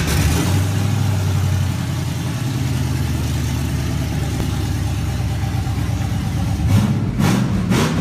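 Engine that has just started, running at a steady idle, then revved in a few short blips near the end.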